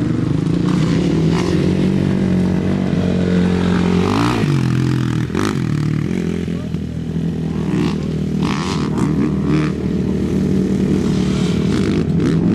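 ATV engine running hard as the quad is ridden around a dirt track, its pitch rising and falling with the throttle about four to six seconds in, with scattered short clatters.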